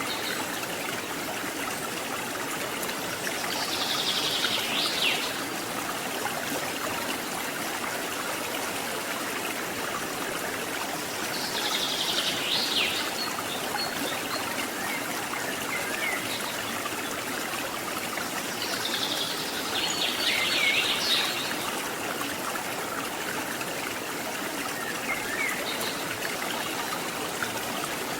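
Steady rush of flowing river water, with a bird giving a high, quickly falling call of about a second and a half, repeated roughly every eight seconds, and a few fainter chirps between.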